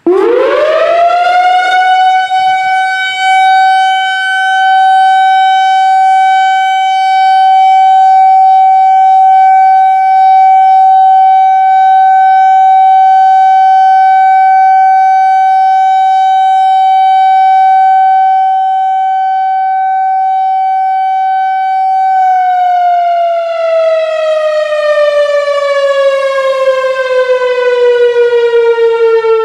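Whelen WPS-4004 electronic outdoor warning siren with an analog controller, sounding its steady alert tone. It sweeps quickly up in pitch, holds one loud steady tone with many overtones for about twenty seconds, then begins a slow slide down in pitch as it winds down.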